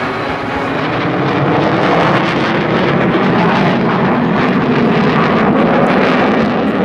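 Jet engine roar of an F-16B fighter's single turbofan. It swells over the first couple of seconds and then holds steady and loud.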